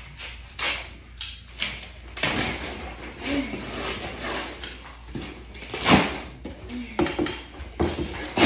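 Large cardboard furniture box being handled and broken down: repeated scraping and rustling of cardboard with sharp knocks, the loudest about six seconds in.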